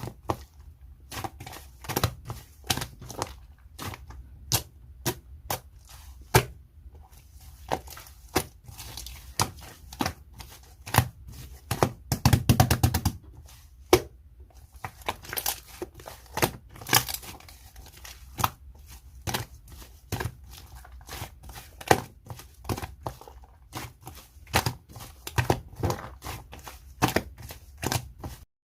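Slime being squished, poked and stretched by hand, giving irregular sticky pops and clicks, with a quick run of crackling pops about twelve seconds in.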